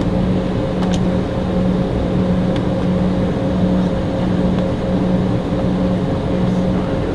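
Steady cabin drone of an Embraer E190 on the ground, its GE CF34 turbofans idling along with the cabin air, an even hum with no rise in pitch. A couple of faint clicks sound about a second in and again a moment later.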